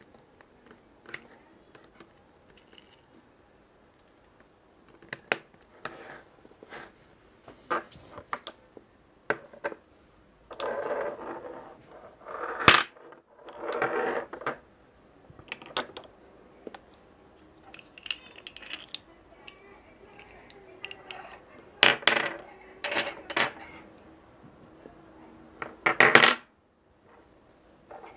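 Small beads being handled: scattered sharp clicks and clatters, with a couple of longer rattling, pouring spells midway and loud clacks near the end.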